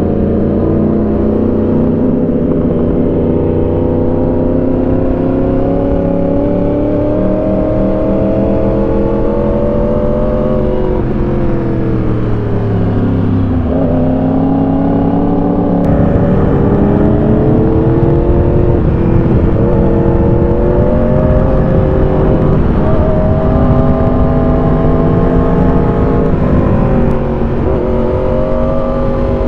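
Motorcycle engine under way, its pitch rising and falling as the rider rolls on and eases off the throttle through a run of curves. There is a deeper dip in revs about twelve seconds in, and the sound grows louder about sixteen seconds in.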